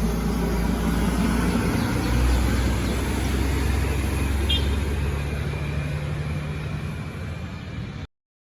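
Road traffic: a heavy vehicle's engine running close by with steady traffic noise and a low rumble. The sound cuts off suddenly about eight seconds in.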